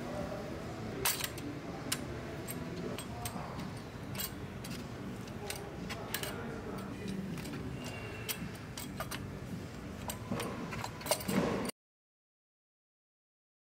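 Hand tools and metal parts clicking and clinking irregularly while the fuel rail's fasteners are undone on the engine. The sound cuts off abruptly to dead silence near the end.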